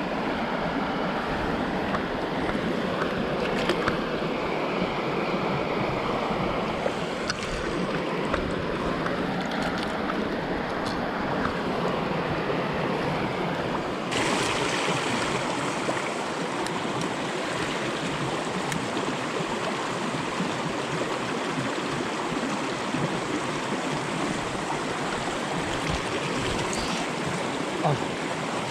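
Mountain stream water running steadily, turning brighter and hissier abruptly about halfway through, with a few faint clicks over it.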